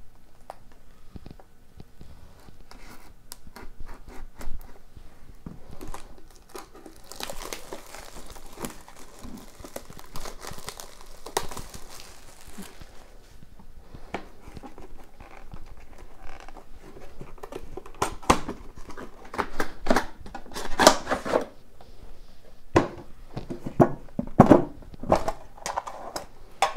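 A sealed 2018-19 Upper Deck The Cup hockey card box being unwrapped and opened by hand: the wrapper is torn and crinkled off, with a steady stretch of crinkling from about seven to twelve seconds in. Near the end come louder rustles, scrapes and taps of the cardboard box as the inner box is slid out of its sleeve.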